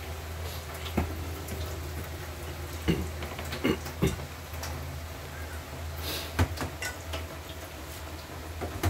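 Kitchen cooking sounds: scattered knocks and clinks of utensils against pans or dishes, with a brief hiss about six seconds in, over a steady low hum.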